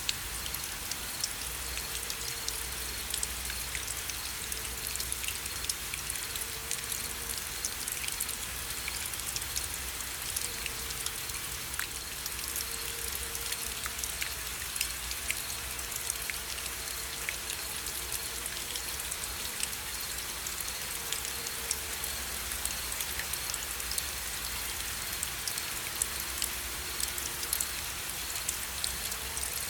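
Steady rain with individual drops ticking sharply against a surface over a continuous hiss.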